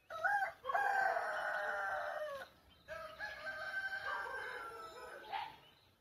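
Rooster crowing twice: two long cock-a-doodle-doo calls in a row, the second a little quieter than the first.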